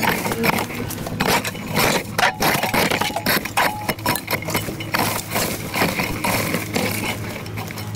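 Metal garden rake scraping and crackling through dry leaves, twigs and dirt in quick, irregular strokes.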